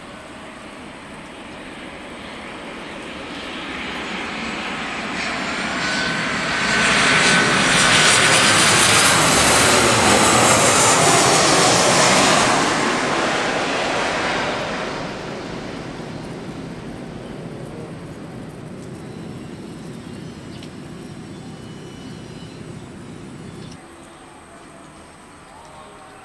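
Twin-engine jet airliner on landing approach passing close: the jet noise swells over several seconds, peaks with a high engine whine, then fades away. Its low rumble cuts off abruptly near the end.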